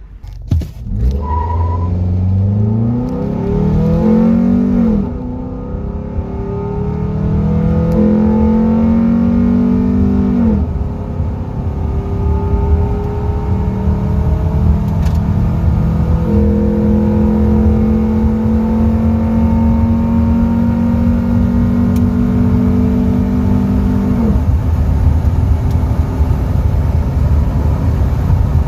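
Nissan Altima's 2.5-litre QR25DE four-cylinder, fitted with an aftermarket header and cold air intake, under full-throttle acceleration: the revs climb, drop at upshifts about five and ten seconds in, then climb slowly again. About 24 seconds in the engine note falls away as the throttle is lifted, leaving a steady low rumble of engine and road noise.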